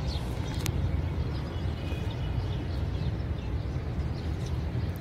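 Outdoor background noise: a steady low rumble, with a few faint bird chirps.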